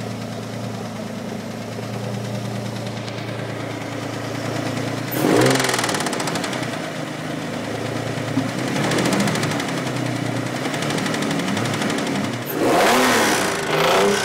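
2004 Infiniti G35's 3.5-litre V6 engine idling and being revved up in several short blips, with a fast tapping running through it that the owner wonders is engine knock or a failing timing chain tensioner.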